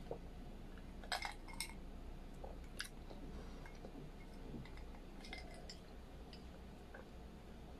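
A person drinking from a glass in gulps: a few faint, short clicks of swallowing and of the glass at the lips and teeth, over a low steady hum.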